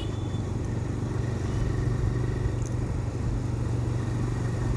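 TVS Raider 125's single-cylinder engine running steadily as the motorcycle cruises in traffic at about 35 km/h, heard close up from the bike itself.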